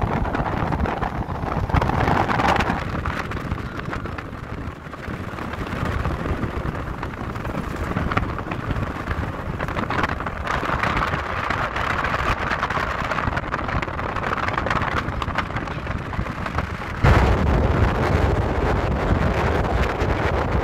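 Steady road and wind noise of a moving car, with wind rushing over the phone's microphone. The low rumble gets suddenly louder about three-quarters of the way through.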